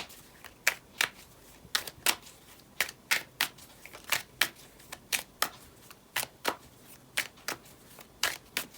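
Deck of divination cards being shuffled by hand: a run of crisp card slaps and clicks, about two a second, irregular in spacing.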